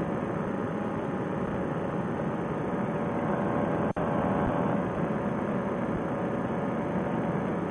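Paramotor trike's engine and propeller running steadily in cruise flight, an even drone. The sound cuts out for an instant about four seconds in.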